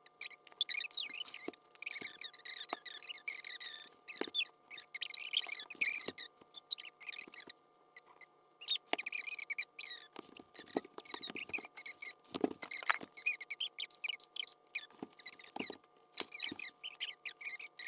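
Rapid, irregular high squeaks and chirps, with a few sharp clicks, from stretchy strips being pulled and wound by hand onto a ball.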